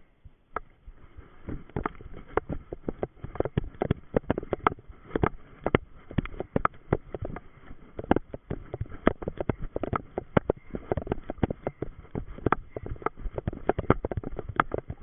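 Running footsteps thudding on moss and low forest vegetation, with grass and undergrowth brushing past; sparse at first, then a steady run from about a second and a half in.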